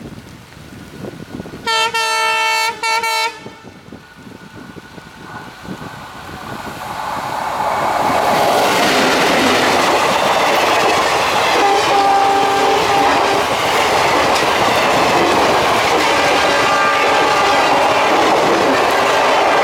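Alco WDM3A diesel locomotive's horn sounded about two seconds in, one blast with two brief breaks, then its 16-cylinder ALCO engine growing louder as it approaches and passes. Passenger coaches follow, rolling by with steady running noise and the clickety-clack of wheels over rail joints.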